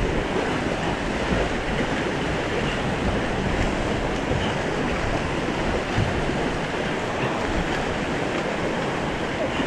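Swollen, fast-flowing river rushing steadily, the brown water breaking white around a jetboat held in the current.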